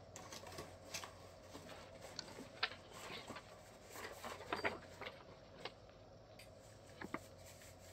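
Faint scattered clicks and light knocks of a bullet-type wireless IP camera being handled and set down on a wooden desk, over a low steady hum.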